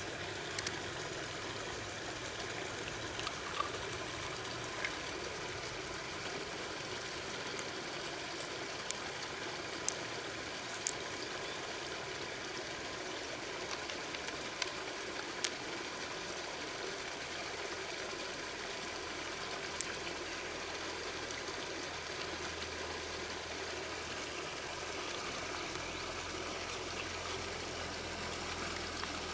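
Steady rush of flowing river water, with a handful of short sharp clicks scattered through the first twenty seconds or so.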